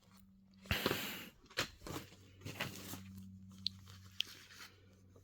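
Rustling and clicking of a DVD case and its paper inserts being handled: a rustle a little under a second in, then scattered light knocks and two sharp ticks, over a faint steady electrical hum.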